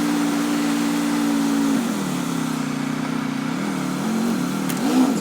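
An engine running steadily. Its pitch drops about two seconds in, and it is briefly revved a few times near the end.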